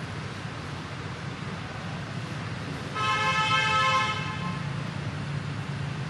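A vehicle horn sounds once, a flat held toot lasting about a second, about three seconds in, over a steady low rumble.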